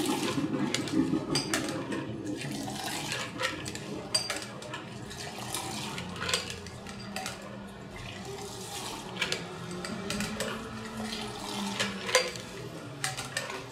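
A cocktail being rolled: the drink and its ice are poured back and forth between a steel shaker tin and a glass. Liquid splashes and ice clatters against the metal and glass with each pour.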